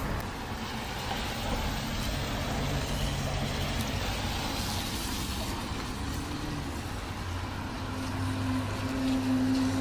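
City street traffic: a steady rush of passing cars, with a low steady hum coming in near the end.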